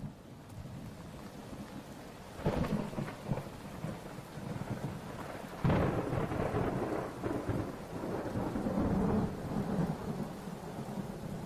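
Steady rain with thunder: two loud cracks, about two and a half and about five and a half seconds in, each rumbling away slowly.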